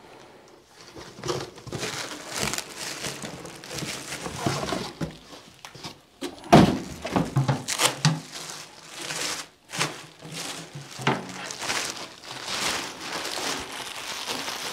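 Plastic wrapping crinkling and rustling while a tom drum is lifted out of its cardboard box and unwrapped, with scattered small knocks and one loud knock about six and a half seconds in.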